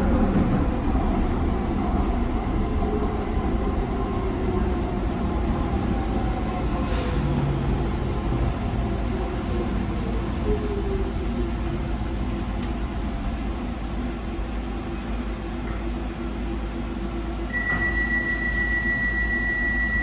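Docklands Light Railway train running, heard from the front of the car: steady rumble of wheels on rail, with a whine that falls in pitch over several seconds. A steady high-pitched squeal sets in about two and a half seconds before the end.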